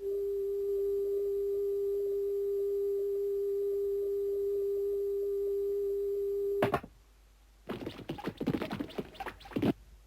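A steady, single-pitch electronic tone like a telephone line tone, held for nearly seven seconds before cutting off with a click, followed by a run of short irregular noises.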